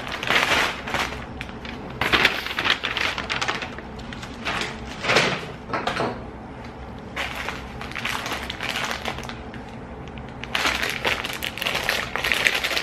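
Plastic packaging crinkling and rustling in a series of bursts, as a plastic shipping mailer and bags of candy are handled and pulled about.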